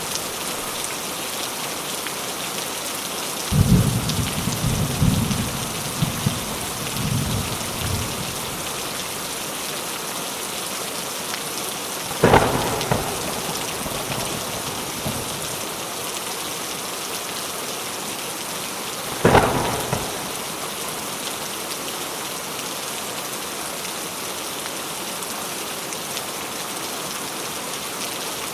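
Steady heavy rain hissing, with low thunder rumbling a few seconds in and two sharp thunderclaps later, about seven seconds apart, each fading quickly.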